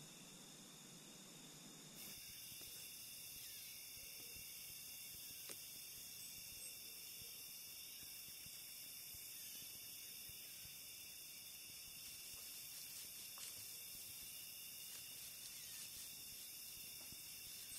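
Faint, steady, high-pitched chorus of crickets and other insects.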